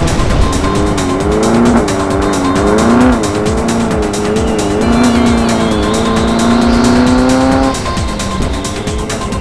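Class 11 VW Beetle race car's air-cooled flat-four engine heard from inside the car, its pitch rising and falling as it revs and shifts, dropping back near the end. Under it runs a constant rapid clatter and rattle of the car working over rough ground.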